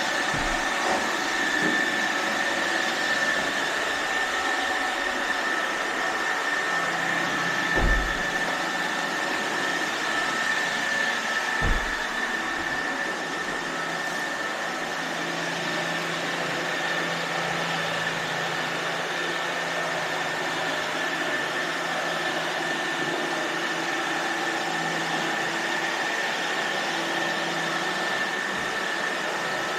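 iRobot Roomba robot vacuums running: a steady motor and brush hum with a constant high whine. Two dull thumps, about eight and twelve seconds in.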